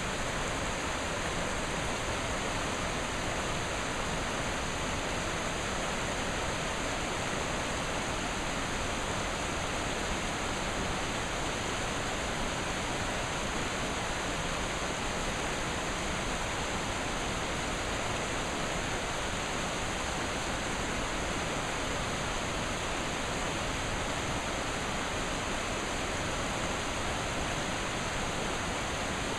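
Steady, unbroken rush of running water from a forest creek and its waterfall, an even hiss that does not change.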